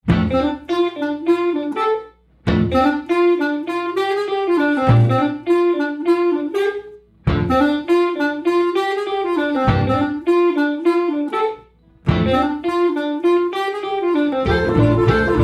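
Instrumental music: a melodic line played in phrases, each dropping out briefly before the next, with fuller accompaniment joining near the end.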